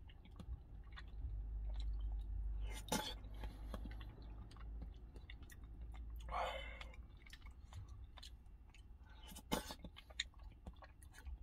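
A person eating hot instant beef rice porridge with a plastic spoon: quiet chewing and mouth noises, with the spoon clicking and scraping in the cup. Three louder sharp sounds come about three, six and nine and a half seconds in.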